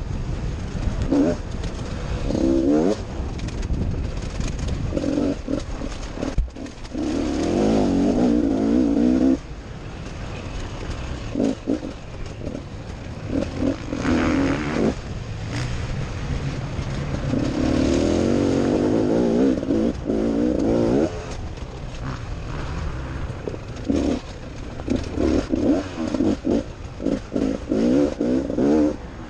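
Enduro dirt bike engine heard from on board, revving up and dropping off over and over as the rider works the throttle along a rough trail, with longer hard pulls a quarter of the way in and again about two-thirds of the way in.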